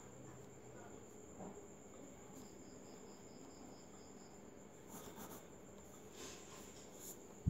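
A steady high-pitched insect trill, with a second, pulsed trill between about 2.5 and 4 seconds in. Faint scratches of a pen on paper.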